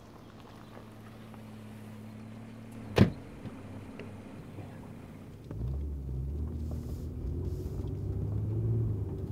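A single sharp knock about three seconds in, then a car's engine and road noise heard from inside the cabin, rising to a louder, fuller rumble from about halfway as the car drives along.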